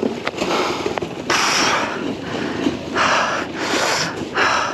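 A person breathing hard close to the microphone: four or five loud, rushing breaths a second or so apart.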